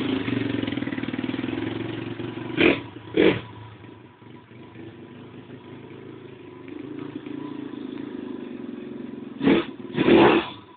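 Small pit bike engine running as the bike rides off, fading away and then growing louder again as it comes back. A few short loud bursts of noise, two about three seconds in and two near the end.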